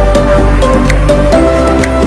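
Background music: held melody notes stepping from note to note over a steady bass line, with light percussion.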